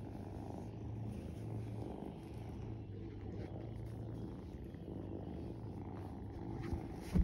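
Kitten purring close by while being stroked: a low rumble that swells and fades about twice a second. A single sharp knock comes right at the end.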